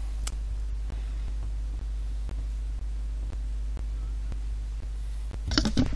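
Steady low electrical hum in the recording, with faint ticks about twice a second and a short louder burst of sound near the end.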